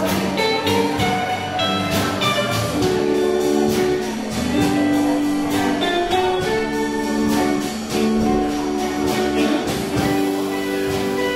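Small live band playing: electric guitars and electric bass over a drum kit, with sustained guitar notes and a steady drum beat.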